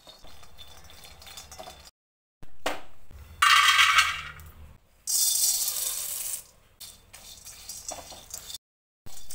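Nuts and seeds rattling and scraping against a steel wok as a silicone spatula stirs them during dry roasting. About three and a half seconds in there is a louder clatter as the roasted almonds are tipped into a steel bowl, and another loud rattle follows about a second later.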